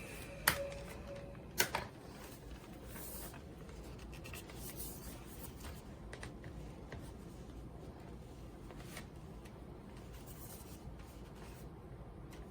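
A sharp click about half a second in and a double click near two seconds, then faint rubbing and light ticks of plastic parts being handled, from a cordless stick vacuum that has just been switched off.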